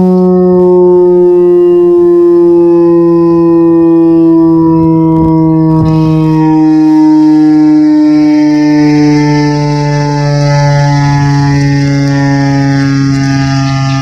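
Federal Signal STH10 electromechanical warning siren sounding loud and up close: two tones held together as one steady chord, sinking slowly in pitch.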